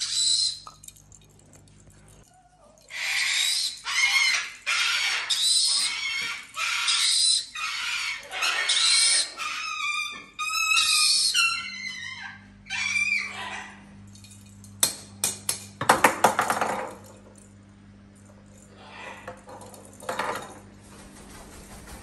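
A parrot giving a run of harsh, repeated screeching calls, some wavering in pitch, followed by a quick cluster of sharp clicks and a few fainter calls. A steady low hum runs beneath.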